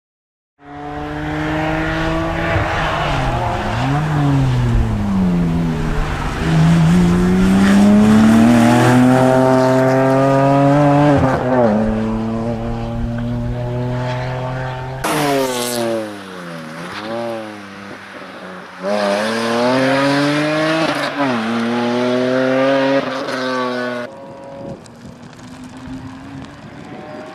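BMW 130i rally car's 3.0-litre straight-six under hard throttle. The engine note repeatedly climbs through the revs and drops sharply at gear changes and lifts, with quick up-and-down dips as it slows and picks up again.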